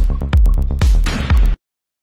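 Electronic dance music with a heavy kick drum about twice a second over deep bass. It cuts off abruptly about one and a half seconds in.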